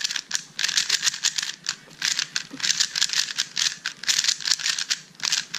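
3x3 speedcube being turned fast in a solve: a rapid plastic clicking clatter of layers snapping through turns, coming in quick bursts.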